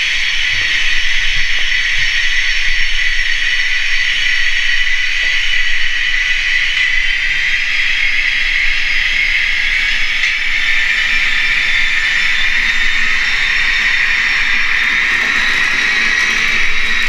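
Sound decoder in a Hobbytrain N-scale BR 110 electric locomotive model, playing a prototype electric loco's running sound through its tiny speaker as the model pulls away with its train: a steady hissing whine of blower fans and traction motors.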